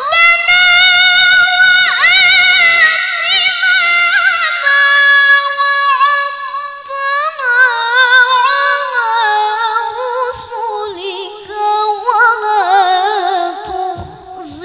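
A young female Qur'an reciter's voice in melodic tilawah, amplified through a microphone, holding one long phrase full of quick trills and vibrato that slowly sinks lower in pitch.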